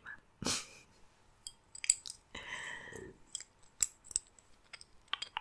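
Light metallic clicks and ticks from a silver leaf-shaped dangle earring being handled close to the microphone, with a soft rustle about two and a half seconds in.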